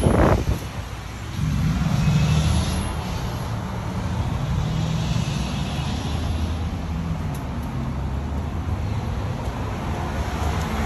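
Steady low engine rumble that swells about a second and a half in and then runs evenly.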